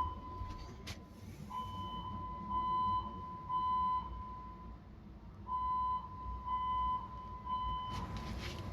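Building fire alarm sounding in the temporal-three evacuation pattern: three half-second electronic beeps a second apart, a pause, then three more, over a low steady rumble.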